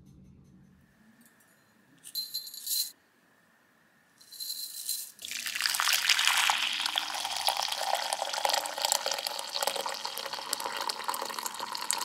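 Hot water poured in a steady stream into a glass measuring cup over loose black tea leaves, starting about five seconds in and running on as the cup fills. Two brief bursts of hissing noise come before the pour.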